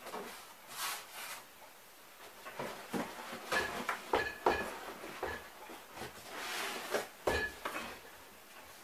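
A large cardboard cabinet being lifted, turned and set down on a wooden table: cardboard rubbing and sliding, several knocks, and a few short squeaks.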